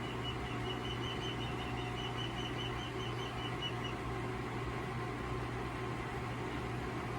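Steady hum and fan noise from a NuWave induction cooktop and the Bluetti power station's inverter driving it, with water heating in a stainless steel kettle toward the boil. A rapid, even series of high chirps runs through the first four seconds.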